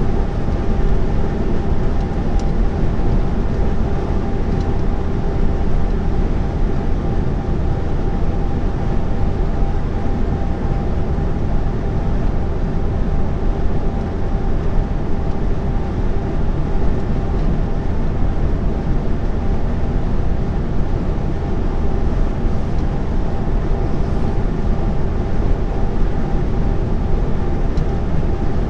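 Inside a lorry's cab while cruising on the motorway: the diesel engine and the road noise make a steady, unchanging drone, with a few held engine tones.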